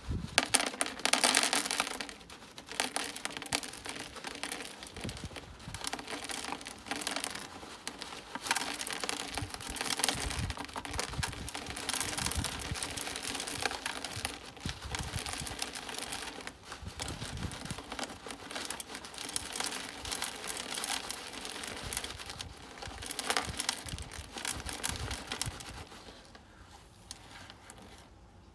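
Plastic bag crinkling as small gravel-like granules trickle and patter out of it into the retro-fit pond bottom drain's dome to fill it, with a steady, crackly rustle. It goes quieter near the end.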